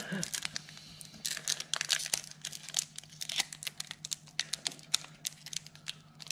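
Pokémon booster pack's plastic foil wrapper crinkling and crackling between fingers as its sealed top edge is picked at and torn, in many small irregular crackles. The pack is hard to tear open.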